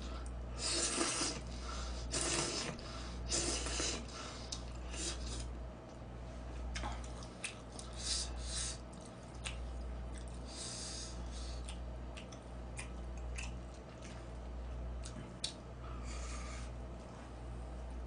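A person slurping noodles and chewing, with short hissy slurps in the first few seconds and scattered clicks of chopsticks against bowls, over a steady low hum.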